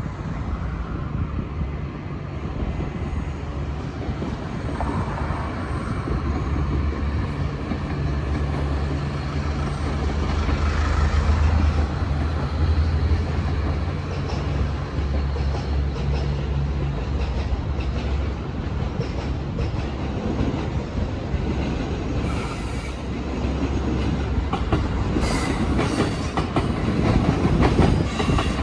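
Electric trains running on the station tracks: a steady low rumble and hum, loudest in the middle stretch, then near the end the quick clatter of wheels over the track as a long train passes close.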